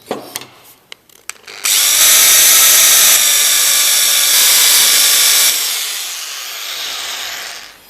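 Magnetic drill (mag drill) boring a 5 mm fixing hole through the tank wall. It starts suddenly, runs with a steady whine at full level for about four seconds, then drops and winds down near the end.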